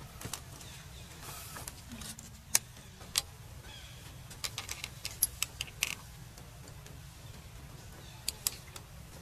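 Scattered sharp clicks and taps over a steady low hum. There are single clicks a few seconds in, a quick run of them around the middle, and two more near the end.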